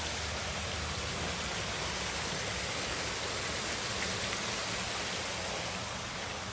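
Water fountain's small waterfall splashing in a steady rush.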